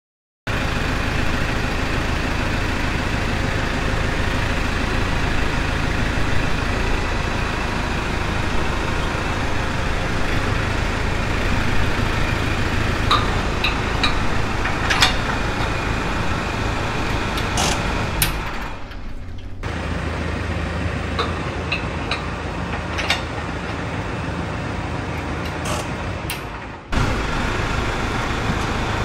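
Tractor engine idling steadily, with a few sharp metal clinks from the three-point hitch lift arms and implement pins as they are handled.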